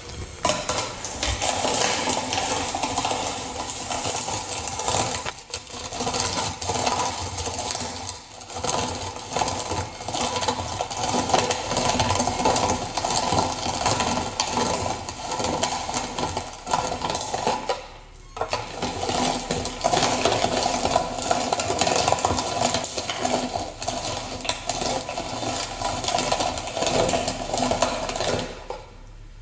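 ALISKID hand-cranked plastic meat grinder crushing dried red chillies: a dense, continuous crackle of the chillies breaking in the auger and cutting plate. It breaks off briefly about five, eight and eighteen seconds in, and stops just before the end.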